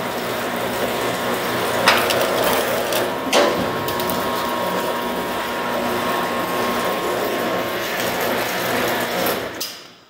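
Bluedog BWS-100v2 industrial cable stripping machine running with a steady mechanical drone as its feed rollers and blades draw a 1-inch cable through, slitting its tough quarter-inch XLPE insulation on a second pass. Two sharp knocks come about two and three and a half seconds in. The machine stops just before the end.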